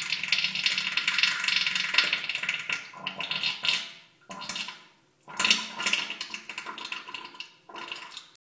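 Diarrhoea sound effect: wet, spluttering bursts like loose stool into a toilet bowl, coming in several spurts with short pauses, the longest over the first four seconds.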